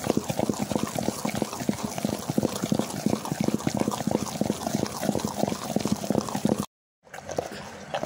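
Cream being churned by hand with a madhani in a steel pot: fast, even, rhythmic wet slapping and sloshing as the butter forms and the buttermilk separates out. It cuts off abruptly near the end, then goes on more quietly.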